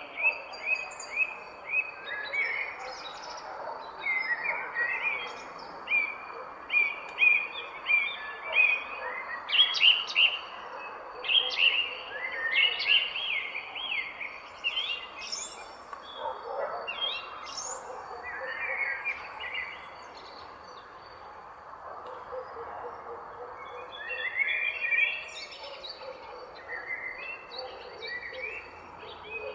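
Several songbirds chirping and singing in short, rapid phrases, some loud and close, over a steady outdoor rustle of breeze and leaves.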